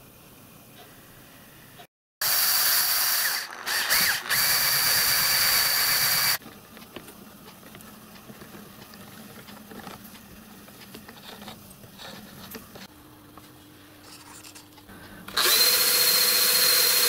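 A cordless drill motor runs in two loud bursts with a steady whine: one of about four seconds starting about two seconds in, and another starting near the end while the drill spins a small lathe. Between them, quieter clicking of small brass gears as a hand crank on the lathe is turned.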